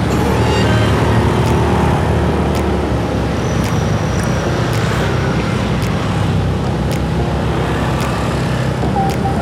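A motorcycle engine running at low speed, with the steady noise of cars and scooters crawling around it in congested traffic.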